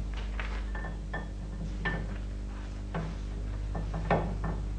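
Light metallic clicks and knocks at irregular intervals as the camshaft of a Lister Petter diesel engine is eased out of the crankcase, some with a brief ring. A steady low hum runs underneath.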